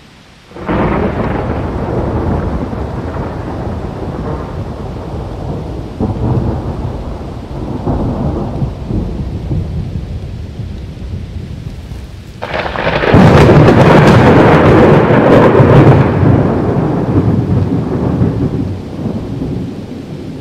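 Thunderstorm: rolling thunder over rain. Several rumbles swell and fade, and the loudest breaks about twelve and a half seconds in and dies away over the following seconds.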